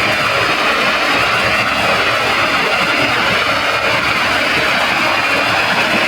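Digitally distorted audio from a stacked 'Roboter' editing effect: a loud, dense, harsh wall of sound that runs on without a break.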